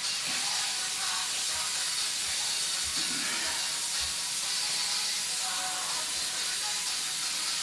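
Steady hiss of water running from a kitchen tap into the sink during washing-up, with a few soft low thuds of footsteps on the tiled floor.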